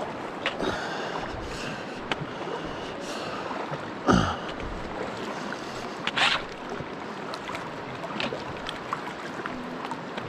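Steady rush of river water in a narrow canyon, with irregular splashes and sloshing from wading, the loudest about four and six seconds in.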